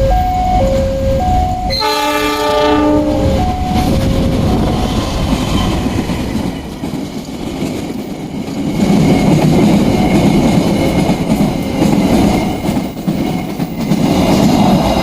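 Locomotive horn sounding one short blast about two seconds in, then the rumble and wheel clatter of a Pertamina tank-wagon freight train crossing a bridge, growing louder in the second half. A level-crossing warning signal chimes two alternating tones at the start and again near the end.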